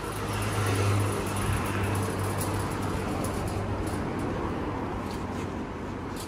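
A motor vehicle passing close by on the street, loudest about a second in, then easing to steady traffic noise with a low hum.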